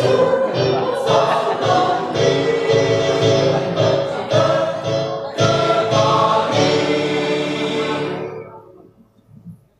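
Mixed choir of men and women singing a march in full voice. The song closes on a held final chord that is cut off about eight seconds in.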